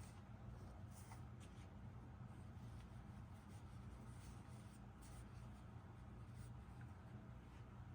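Faint, irregular rustling and scratching of hands stuffing polyester fiberfill into a fleece tube, over a low steady hum.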